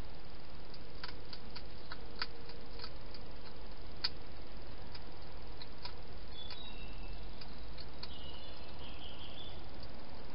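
Wild hedgehog eating from a bowl: irregular sharp crunching clicks of chewing, over a steady hiss. A faint high wavering chirp comes in about two thirds of the way through.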